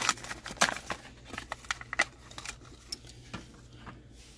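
Plastic blister pack of a Hot Wheels die-cast car being pried and torn off its cardboard card: a quick, irregular run of sharp crackles and snaps that dies away near the end.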